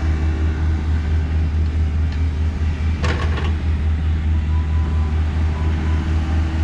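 Diesel engine of heavy construction equipment running hard and steadily, with a fast, even low pulse. A short metallic clatter comes about three seconds in.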